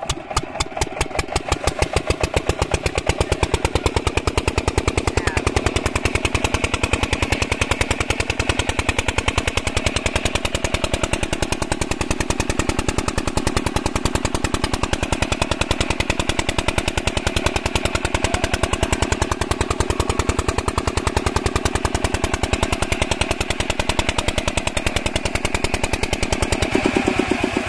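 An 8 hp single-cylinder diesel pumpset engine catches after hand-cranking and picks up speed over the first few seconds. It then runs with a steady, fast exhaust beat while driving the water pump. Right at the end the beat slows.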